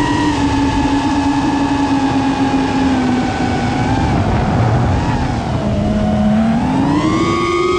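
Home-built five-inch FPV racing drone's motors and propellers whining, heard from the on-board camera over wind rush. The pitch holds steady, dips slightly about five and a half seconds in, then rises near the end as the motors speed up.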